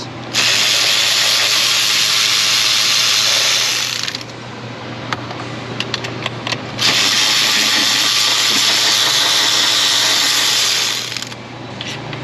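Cordless electric ratchet running in two long spells of about four seconds each, with a short gap between them, spinning out exhaust manifold bolts.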